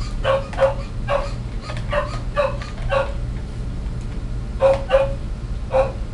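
Dog eating from a small bowl on the floor: short wet smacking and chomping sounds, often in quick pairs about every half second, with a pause of about a second and a half midway. A steady low hum runs underneath.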